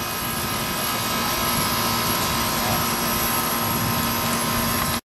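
Steady roaring hiss of a Coleman liquid-fuel camp stove burner heating a saucepan of glaze. It cuts off abruptly near the end.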